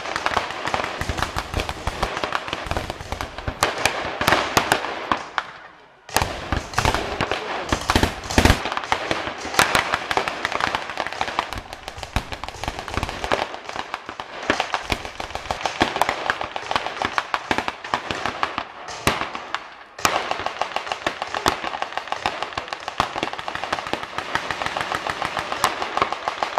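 Maxim heavy machine guns firing long, rapid bursts of blanks, the shots running close together, with brief breaks about six seconds in and again near twenty seconds.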